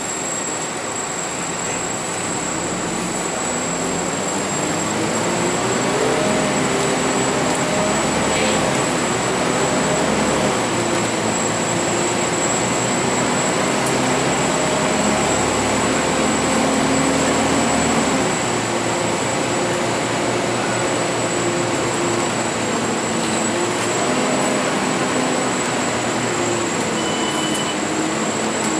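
Volvo B10BLE CNG bus engine pulling the bus up through its gears, heard from inside the passenger saloon. The engine note climbs and steps several times, then drops about two-thirds through and settles into a steady cruise. A thin, steady high-pitched whine runs underneath.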